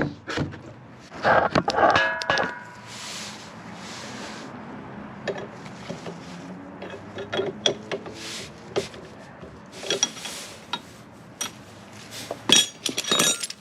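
Irregular clanks, clicks and scraping of metal tools and parts being handled, with a brief metallic ring early on and a few short hisses.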